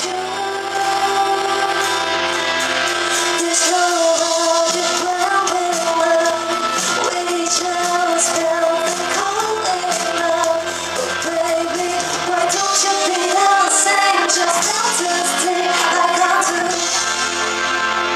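A K-pop song performed on stage: a woman singing over a loud backing track.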